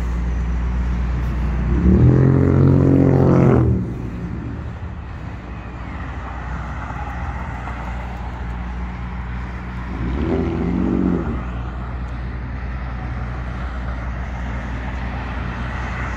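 Road traffic: a steady low hum of cars on a wide multi-lane road, with two louder vehicles going by, about two seconds in and again about ten seconds in.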